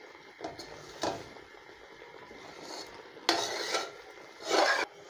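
Metal spoon stirring and scraping thick semolina halwa around a metal pot, with two louder scrapes about three and a half and four and a half seconds in. The halwa is stiffening as it cooks down.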